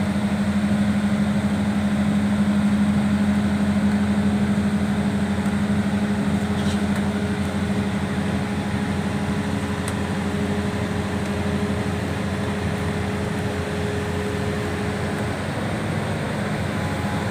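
Diesel engine of a Hitachi EX200 hydraulic excavator running steadily, a continuous low engine hum with no sharp knocks.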